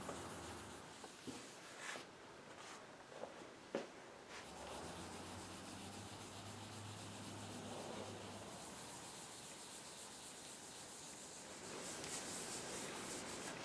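Cloth rubbing paste wax onto a smooth tabletop by hand: a faint, steady rubbing, with a few light taps in the first few seconds and slightly louder strokes near the end.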